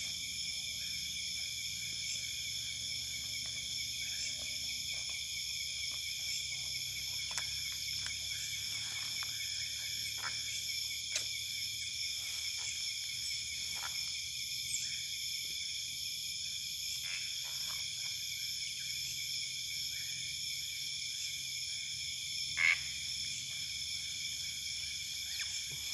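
Night-time chorus of insects and frogs: several steady high-pitched trills that hold unchanged throughout, with faint scattered clicks and rustles and one brief louder sound about twenty-three seconds in.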